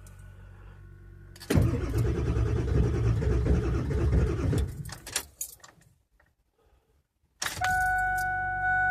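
The starter cranks a 1999 Ford 7.3 L Power Stroke diesel for about three seconds without it firing, the no-start of a cold engine with bad glow plugs, then stops with a few clicks. Near the end a steady electrical buzz starts.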